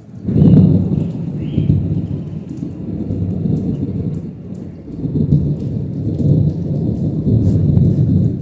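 Rolling thunder: a loud low rumble that breaks out sharply just after the start and rolls on with several swells, easing off near the end.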